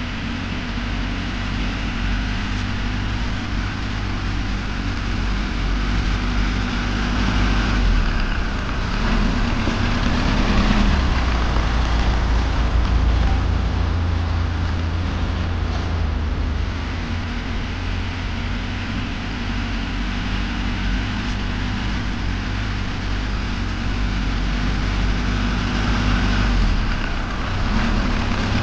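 Engine of a working vehicle running steadily, a low hum with a noisy rattle above it, a little louder in the middle.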